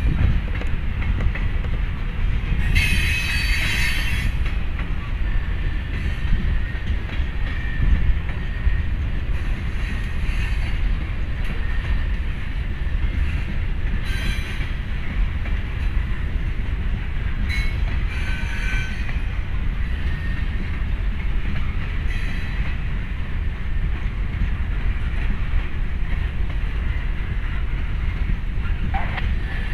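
Norfolk Southern covered hopper grain cars rolling past, their wheels making a steady low rumble on the rails. Short high-pitched wheel squeals cut in about three seconds in, around fourteen seconds and again near eighteen seconds.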